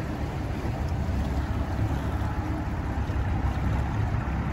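Steady low rumble of a small fishing boat moving on a river, with wind on the microphone.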